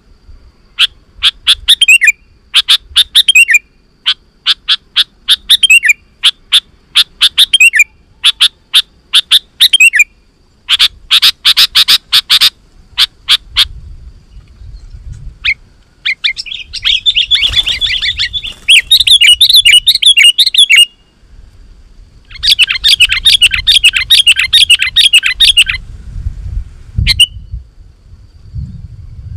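Sooty-headed bulbul (kutilang) singing in full, excited voice: groups of short, bright, clipped notes, then long fast chattering runs about halfway through and again later. This is the vigorous song used as a lure call to draw other bulbuls.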